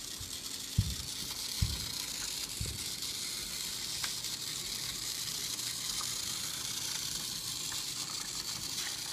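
Battery-powered GeoTrax toy car's small motor whirring steadily as the car runs along the track, with a few soft knocks in the first few seconds.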